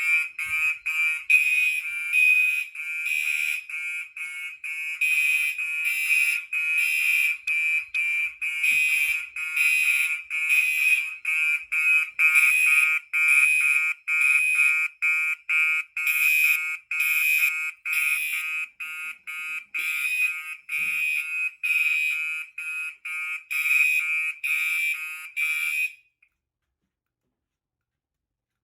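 Gentex SHG and Gentex Commander 3 fire alarm horn strobes sounding together in sync, a harsh horn tone pulsing on and off in rapid even beats after a pull station is activated. The horns cut off suddenly about 26 seconds in when the panel's audible silence is pressed.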